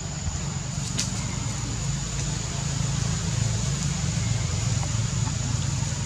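An engine running steadily in the background, a low even hum, with a thin steady high whine above it and a single sharp click about a second in.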